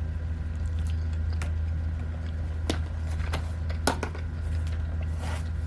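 A person chewing a mouthful of pasta close to the microphone, with a few short sharp clicks about halfway through, over a steady low hum.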